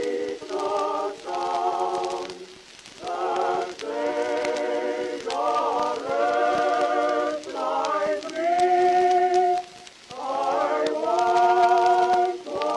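Unaccompanied choir singing a slow series of held chords, each about a second long with short breaks between them, the voices wavering with vibrato.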